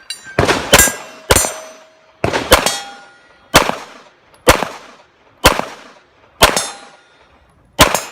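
A pistol fired about ten times at roughly one shot a second, some shots in quick pairs, with several hits followed by a short metallic ring from steel targets.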